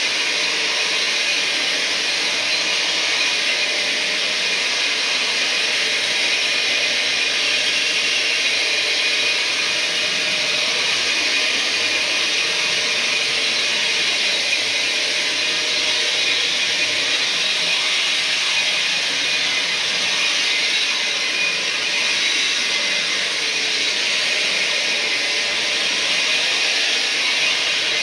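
Carpet-cleaning brush machine running as it is worked across carpet: a constant motor hiss with no change in level.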